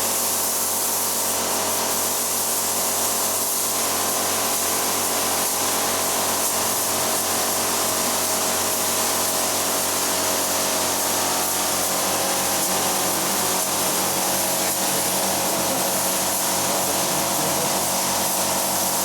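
Steady hiss of a compressed-air spray gun over a continuous mechanical hum, the hiss easing off at the very end.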